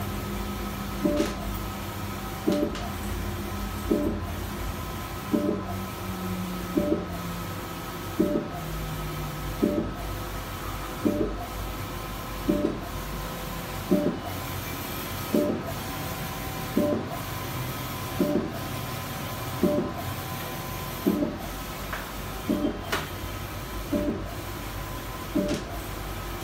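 ETECH 1.6 m wide-format inkjet printer printing: a steady machine whirr with a knock about every second and a half, in time with the print head carriage's passes across the media.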